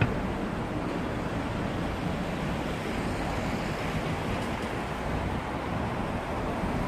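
Steady rushing noise of wind on a handheld phone microphone, over the low hum of street traffic.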